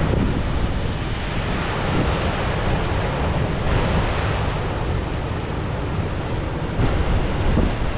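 Ocean surf breaking and washing over black lava rocks, with wind rumbling on the microphone. The wash swells louder about halfway through and again near the end.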